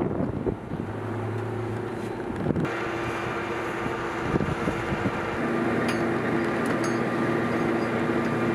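Steady mechanical hum and whine of aircraft machinery on a flight line, holding a few even tones. The sound changes abruptly about two and a half seconds in, and a few faint ticks come near the end.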